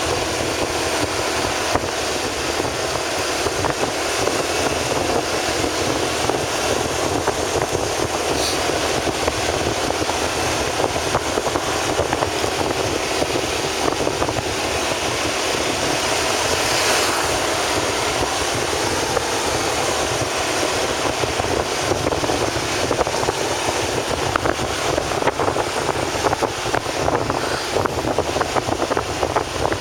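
Steady vehicle and road noise, with wind rushing over the microphone.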